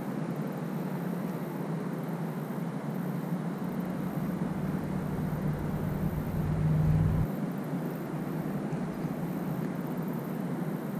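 Steady outdoor background noise with a low hum. A deeper rumble swells from about three and a half seconds in, is loudest around seven seconds and cuts off suddenly.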